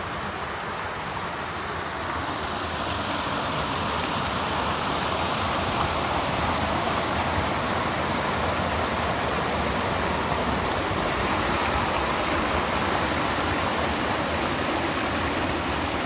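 Water of a small creek waterfall pouring over rock ledges, a steady rushing that grows a little louder over the first few seconds.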